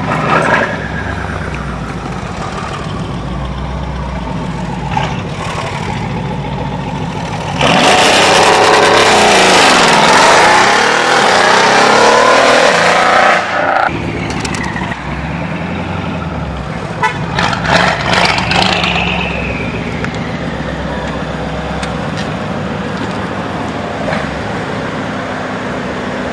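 Straight-piped Mercedes-AMG E63 S 5.5-litre biturbo V8 rumbling at low revs, with a short rev at the start. About eight seconds in it goes to hard, loud full throttle for about six seconds, then cuts off sharply. It settles back to a low rumble, with a few quick rev blips a few seconds later.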